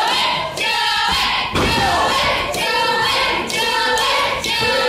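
A crowd of spectators, many of them children, chanting and shouting with high, sustained voices. About a second and a half in there is a single heavy thud of a body on the wrestling ring canvas.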